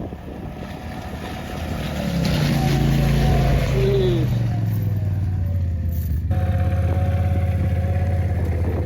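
Side-by-side UTV engine revving up and pulling under load as it drags a sunken snowmobile out of a pond on a chain; the engine note settles to a steady drone about six seconds in.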